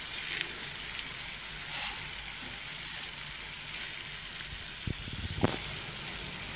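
Sauced vegetables sizzling steadily in a pan over a gas flame, with a few crisp rustles and crackles as handfuls of deep-fried noodles are dropped in. The sharpest crackle comes about five and a half seconds in.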